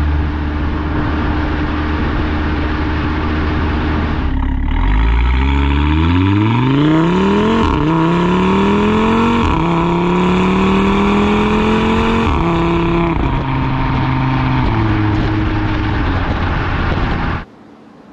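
Audi RS3 8V's turbocharged five-cylinder exhaust, both exhaust valves held open by an SST valve-control box. It runs steadily at low revs, then about four seconds in accelerates hard, the pitch climbing in three pulls broken by quick upshifts. It then drops to lower revs in three more upshift steps, and the sound cuts off abruptly near the end.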